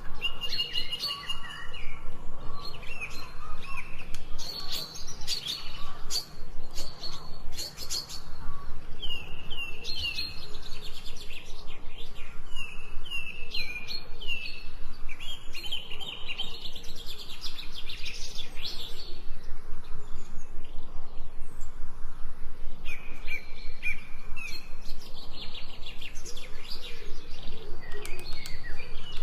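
Several songbirds chirping and singing, a dense chorus of short repeated notes, many of them falling in pitch, over a faint steady low hum.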